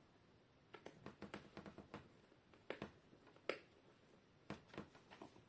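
Faint, irregular clicks and taps of a small screwdriver and screws as the laptop screen's mounting screws are put back in. The loudest click comes about three and a half seconds in.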